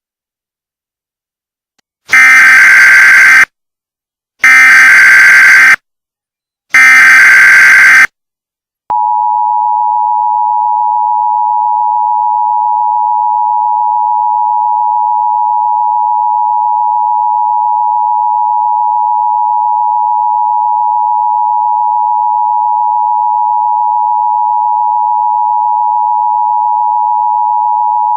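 Emergency Alert System test: three short, loud bursts of the SAME digital header data tones, about a second apart, followed by the EAS two-tone attention signal, a steady dual tone held for about twenty seconds.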